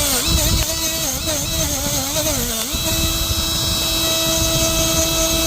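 Milwaukee M12 cordless die grinder running with a high whine. Its pitch dips and recovers several times, then holds steady from about three seconds in.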